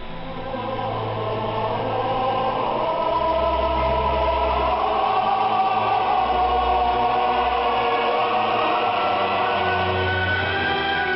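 Choral singing with orchestral accompaniment, received over shortwave radio with the sound cut off above about 5 kHz.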